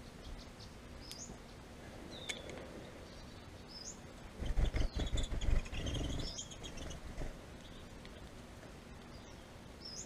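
Small finches at a tube seed feeder: short rising chirp calls several times, and about halfway through a burst of rapid fluttering thumps as a bird's wings beat close to the feeder.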